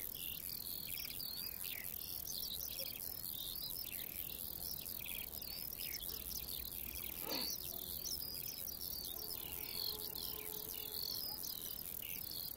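Grasshopper stridulating, rubbing the inner face of its hind femur against its forewings: many short, scratchy chirps of rapid pulses repeating several times a second.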